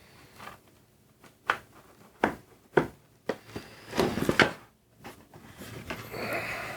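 Handling noises on a work table: a handful of sharp knocks and clatters, then a soft rustle near the end.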